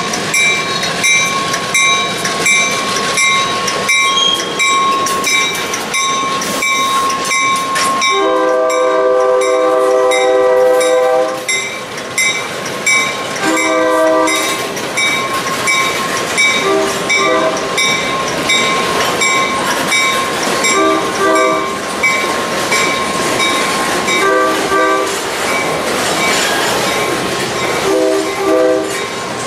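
A train passing while its locomotive air horn sounds a chord: one long blast about eight seconds in, then about five shorter blasts spaced through the rest. Underneath are the rail wheels clattering and a steady high ringing tone.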